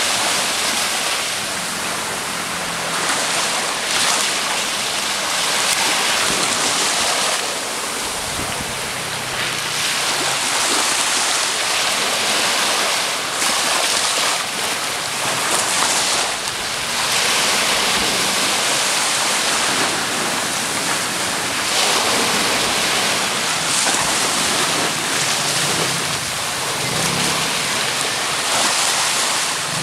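Small waves breaking and washing up the beach, a steady hiss of surf that swells and eases every few seconds.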